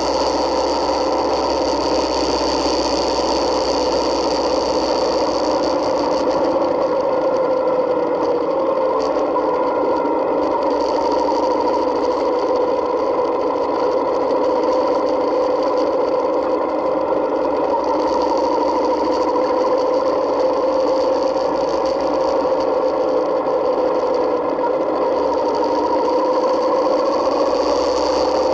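Yamaha Midnight Star 1900's V-twin engine running at a steady cruise, its pitch drifting gently with the throttle and rising a little near the end, with a thin high whine that fades in the middle and returns near the end.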